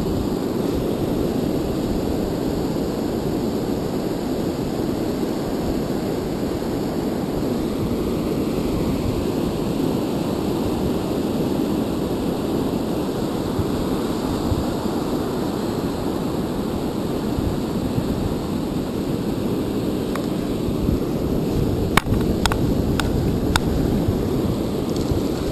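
Wind buffeting the microphone over the wash of surf breaking on the beach: a steady rumbling noise. Near the end come a few sharp clicks.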